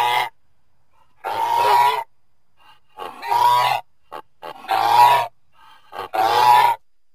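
A goose honking: four drawn-out calls about a second and a half apart, with a few short notes between them, and the tail of another call at the start.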